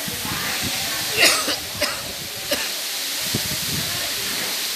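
A single cough about a second in, over a steady rushing hiss and faint voices.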